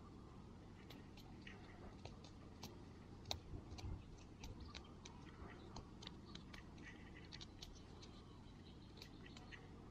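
Very faint scattered ticks and rustles of fingers handling a small dirt-crusted nugget, a little louder around the middle.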